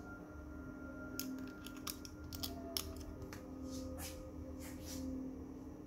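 Faint, scattered sharp clicks and crinkles from fingers handling and flexing the thin plastic chip-on-film (COF) strip of an LCD TV panel, over a steady low hum.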